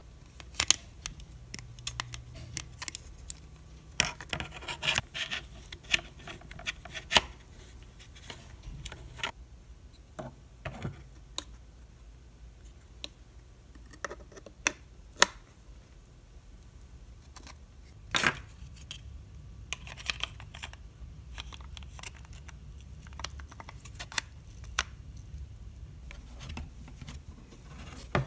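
Hard plastic RC truck chassis parts being handled and fitted onto the chassis rails: scattered clicks, taps and short scrapes, with a low steady hum underneath.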